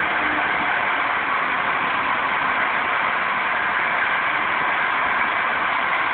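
Steady hiss of escaping steam from steam locomotive No. 186, a GS&WR J15 class 0-6-0, standing at the platform.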